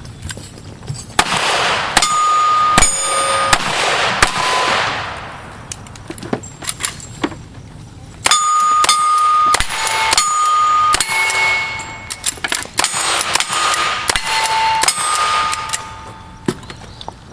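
Cowboy action shooting: a rapid string of gunshots at steel targets, each hit followed by the ringing ding of the steel plate. The shots come in three strings with short pauses between them.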